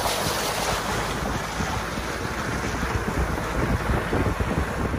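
Wind rushing over a microphone held out of the side window of a moving SUV, with the front tyre splashing through a muddy puddle near the start, then the tyres running on a wet dirt road.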